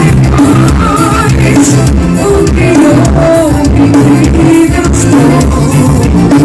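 Forró song with singing and a steady bass beat, played loud through a car sound system.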